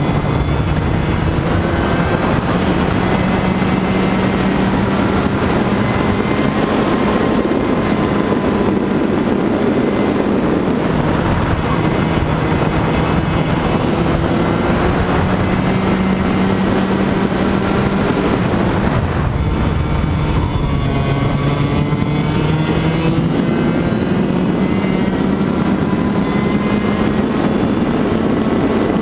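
Two-stroke racing kart engine heard onboard at speed. Its pitch climbs steadily as it accelerates, then drops sharply as it slows, several times over.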